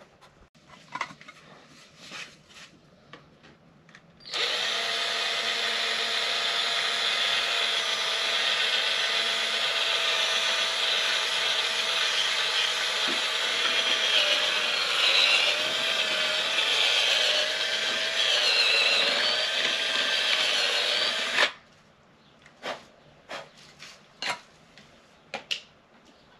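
Cordless drill boring a hole through a white plastic cap, running for about seventeen seconds from about four seconds in. Its motor tone wavers as the bit loads, and it cuts off abruptly. Light handling knocks and clicks come before and after.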